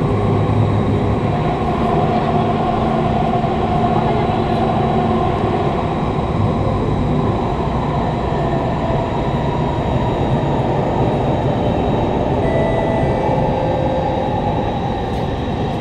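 Inside a Kawasaki Heavy Industries C151 metro car running at speed through a tunnel: a loud, steady rumble of wheels on rail, with a few faint steady tones typical of its GTO-VVVF traction motors.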